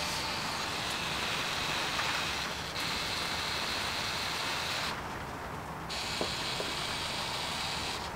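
Steady background hiss, its upper part dropping out for about a second midway, with a couple of faint clicks around six seconds in.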